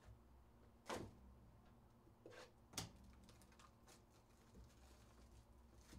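Quiet handling of cardboard trading-card hobby boxes: a few brief knocks and scrapes, the loudest about a second in and another sharp one just before three seconds.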